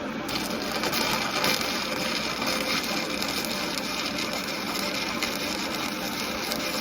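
Stick (shielded metal arc) welding with a 7018 electrode at low amperage: the arc's dense, steady crackle, which starts just after the beginning and holds without a break.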